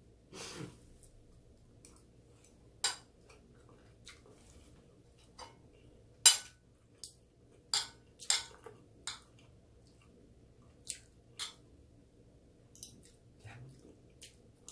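Spoon and fork clinking and scraping against a plate while eating: a dozen or so sharp, irregular clinks, the loudest about six seconds in.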